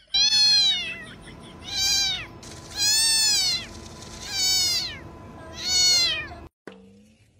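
A cat meowing five times in a row, about once a second. Each meow is a clear, high call that rises and then falls in pitch.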